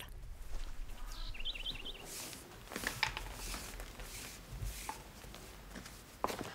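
Rural outdoor ambience: a bird gives a quick run of about five high chirps around a second and a half in, among scattered soft knocks and rustles.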